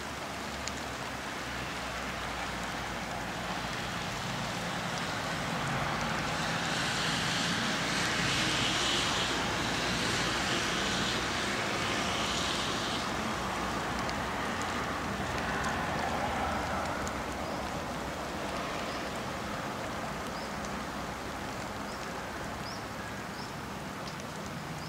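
Rain falling, a steady hiss that grows louder for several seconds in the middle and then eases off. A few faint high chirps near the end.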